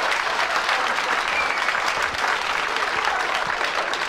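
Live audience applauding: dense, steady clapping.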